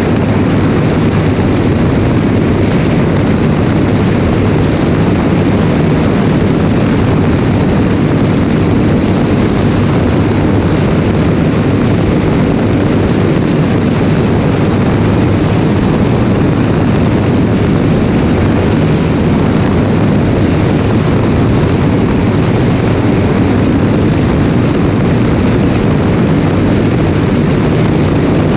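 Light propeller aircraft in flight: a steady engine-and-propeller drone mixed with a strong rush of slipstream wind over a wing-mounted camera, unchanging throughout.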